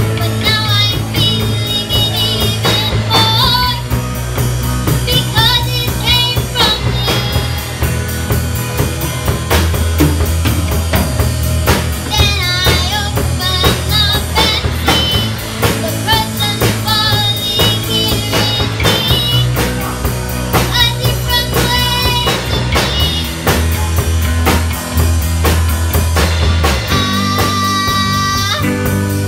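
Live band performance: a young female vocalist singing into a microphone, backed by drum kit, electric bass and electric guitar.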